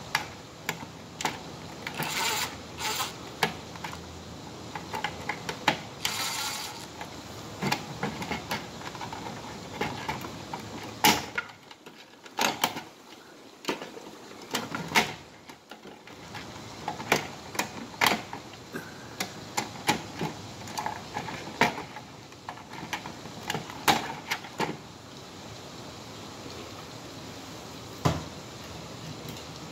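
Irregular clicks, taps and rattles of hands working a plastic Simplex horn strobe and its screws and wiring loose from its mounting.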